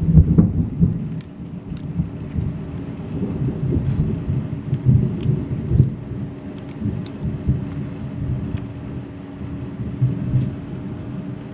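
Boiled crayfish shells being cracked and pulled apart by hand, giving scattered sharp little cracks and clicks over an irregular low rumble.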